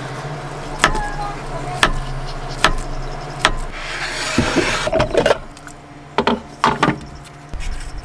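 Knife chopping through banana onto a wooden cutting board, four cuts about a second apart, then the blade scraping the slices across the board, over a steady low hum. In the last seconds, a few knocks and rustles as a small paper milk carton is handled.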